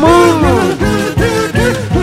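Upbeat background music with a steady beat of about four strokes a second and a pitched melody that slides up and down near the start.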